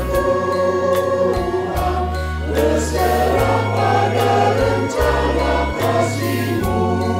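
Mixed church choir of women's and men's voices singing a song in Indonesian over an instrumental backing, with long held bass notes and a light steady beat.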